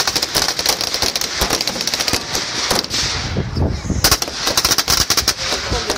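Gunfire: many shots cracking in rapid succession, easing off briefly about three seconds in and picking up again a second later.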